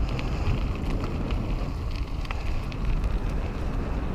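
Wind buffeting a helmet-mounted action camera on a moving mountain bike, a steady low rumble, with the tyres rolling over the trail and scattered small clicks and rattles from the bike.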